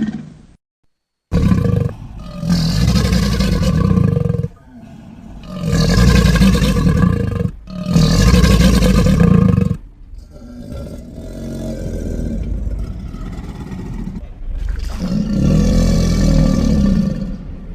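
Crocodile sound effect: a series of about six deep, rumbling growls, each lasting a couple of seconds, after a brief silence about a second in; the later growls are quieter.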